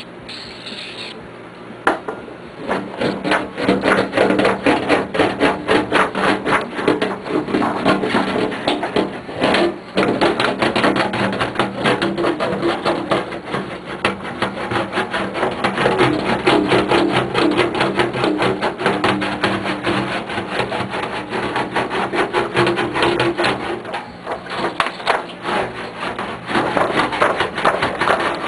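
Rapid rubbing and rattling strokes of a magnetic dent removal tool worked over a tuba's brass tubing, the magnet outside driving a steel ball inside over the dent, with the tubing ringing at a couple of steady tones underneath. The strokes start about two seconds in and pause briefly a few times.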